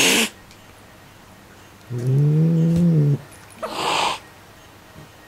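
An angry white cat guarding its toy mouse: a hiss right at the start, then one low, drawn-out growl about two seconds in lasting just over a second, then another short hiss.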